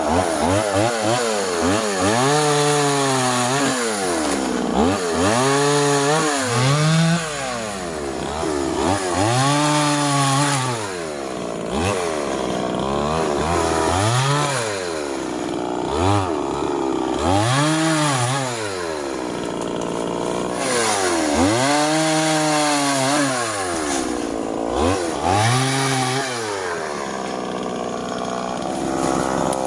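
Stihl two-stroke chainsaw cutting through wood. The engine pitch dips and climbs again about every two seconds as the chain bites into the log and then frees up.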